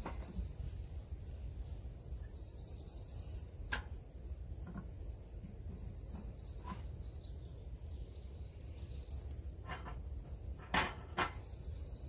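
Sharp clicks and knocks at a small wood-burning tent stove as its door and fire are tended, the two loudest close together near the end, over a low steady rumble. A high trill repeats every few seconds in the background.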